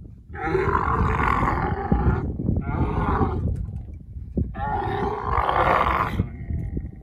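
Dromedary camels mating: the couched female bellows in three long, loud calls, the first and last each well over a second, a shorter one between. She cries out as the male mounts her.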